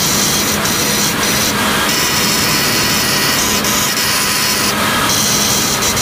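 Handheld grinder running against the hardfaced steel surface of a cement-mill roller press roller, a loud steady grinding noise as flux and slag are ground off the weld build-up.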